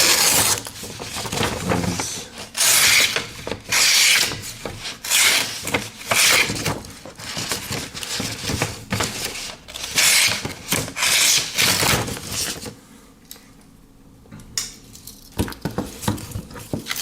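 Victorinox Tinker pocket knife blade drawn repeatedly across a material in a sharpness test: a series of rasping cutting strokes about one a second, stopping about thirteen seconds in, followed by a few faint clicks.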